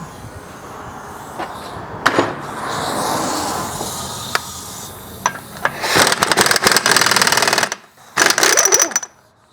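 Impact wrench hammering in two bursts, a longer one followed by a shorter one, working a rusted suspension nut and bolt loose. Before that there is a rushing hiss and a few sharp knocks.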